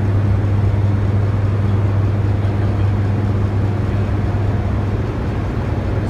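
Hydroelectric generating units of the Hoover Dam powerhouse running: a steady low hum under a constant machine rush, with no change.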